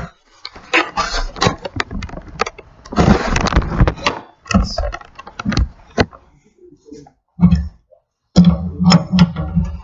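Wrench clicking and metal knocking in uneven strokes as a lug nut is tightened to pull a new wheel stud through a hub assembly, with a rasping scrape partway through and a quicker run of strokes near the end.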